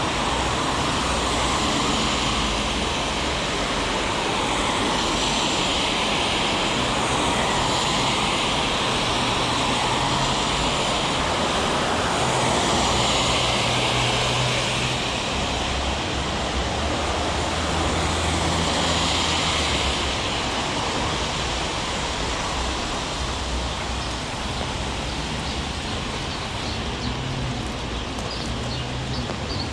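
Heavy rain falling steadily on a city street, with traffic passing on the wet road: tyre hiss swelling and fading several times over a low engine rumble.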